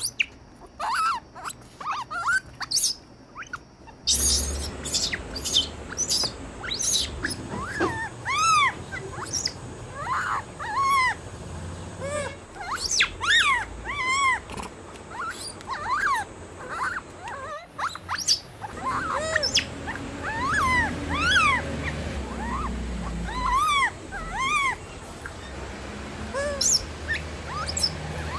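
A long series of short chirping animal calls, each rising and then falling in pitch, sometimes several a second, over a low rumble that comes and goes.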